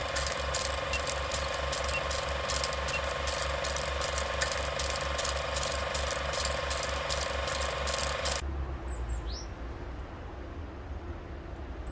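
Old film projector sound effect: a rapid, even mechanical clatter over a steady hum, cutting off suddenly about eight seconds in. After it comes quiet outdoor ambience with one short falling bird chirp.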